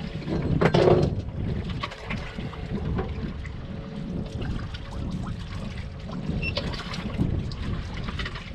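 Water sloshing and trickling against the hull of a small boat at sea, over a low continuous rumble, with a louder splash just under a second in and a few small knocks.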